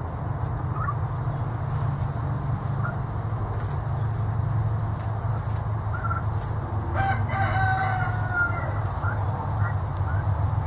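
Young turkeys giving short, high chirps while they peck at grass, with one longer trilling call about seven seconds in, over a steady low hum.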